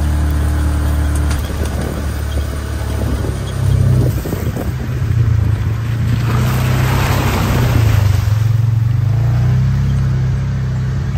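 ATV engine running under way, rising in pitch about four seconds in as it speeds up, then a rushing splash from about six to nine seconds in as the tyres go through a shallow muddy water crossing.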